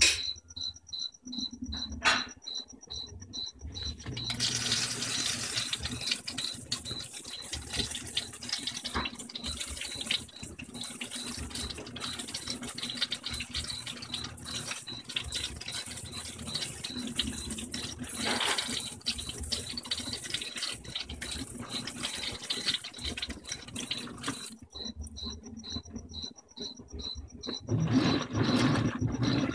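Whirlpool Vantage top-load washer filling: water sprays down into the basket over the dry sheets for about twenty seconds, then stops. Near the end the basket starts turning the wet load with a lower, louder churning sound.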